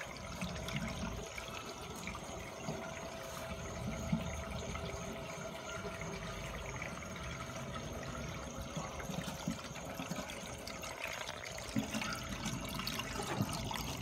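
Water running steadily through a reef aquarium's Eshopps Eclipse S overflow box and drain plumbing, with the return pump at full flow.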